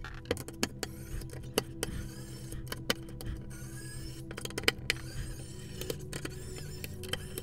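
Small pen-style electric screwdriver running with a steady hum as it undoes the screws holding a CPU cooler to a motherboard, with scattered sharp metallic clicks from the screws and tool.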